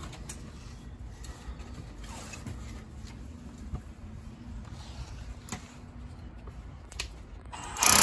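A few light clicks and knocks as a cordless rotary hammer is handled and its masonry bit set against the wall, then near the end the rotary hammer starts up suddenly and loudly, beginning an anchor hole in a stucco-faced masonry foundation wall.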